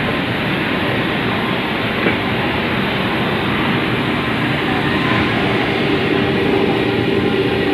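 Plastic welding machine for geyser outer bodies running, a loud, steady mechanical rumble with a faint steady hum coming in about five seconds in.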